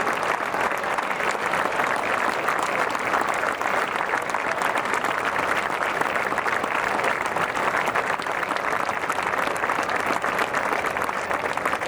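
Stadium crowd applauding steadily, a dense patter of many hands clapping.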